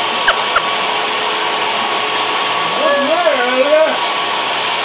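A blue high-velocity pet dryer blows steadily through its hose, a loud rushing noise with a constant high motor whine. A few short sharp sounds come in the first second, and about three seconds in a drawn-out, wavering vocal sound rises over the blower.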